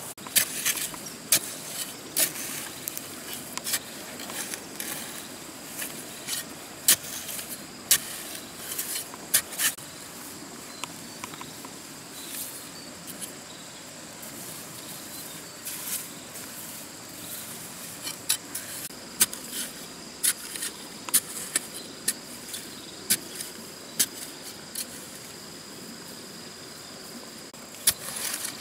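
A metal-bladed digging tool on a bamboo handle stabbing and scraping into wet sand and mud, making irregular sharp knocks and scrapes, some a second or more apart and some in quick clusters. A faint steady high whine runs underneath.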